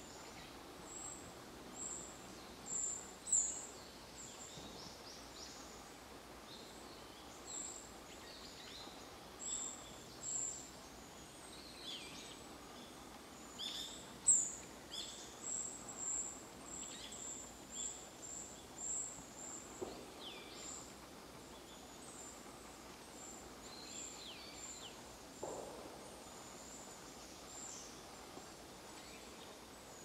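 Thin, very high bird call notes repeated irregularly, many short notes with fainter down-slurred notes among them, over a steady woodland background hiss.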